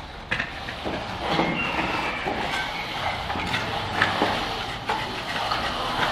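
Shovel and screed bar scraping through dry sand-cement mortar, with scattered short scrapes and knocks over a steady rumbling background.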